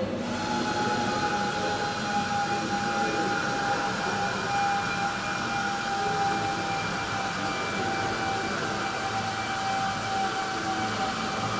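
A steady mechanical whine: one constant high tone with fainter higher tones over a low hum, holding level throughout.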